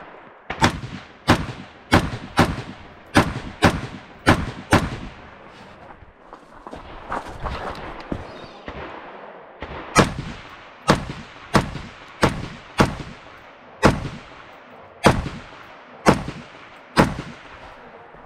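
Semi-automatic rifle fired rapidly: four quick pairs of shots over the first five seconds, then after a pause of about five seconds a further string of about nine shots roughly a second apart.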